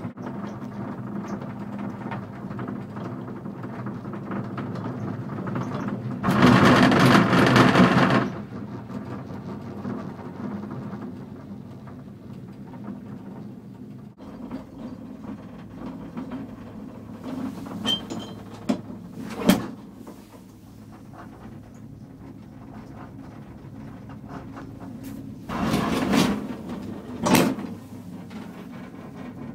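Ride inside a small four-person Poma gondola cabin: a steady low rumble from the cabin running on the haul rope, swelling into a loud burst of rattling noise for about two seconds as the cabin passes over a tower's sheaves. A few sharp clicks follow later, and near the end there is another loud stretch with sharp knocks.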